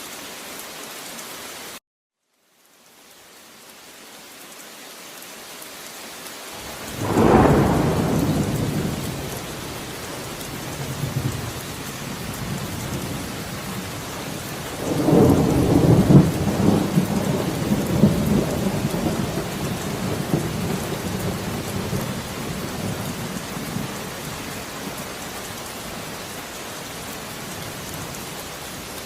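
Steady rain with two rolls of thunder: a loud low rumble about seven seconds in that fades away, and a second, longer one starting about fifteen seconds in that rumbles on for several seconds before dying back to the rain. About two seconds in the sound cuts out completely for a moment, then the rain fades back up.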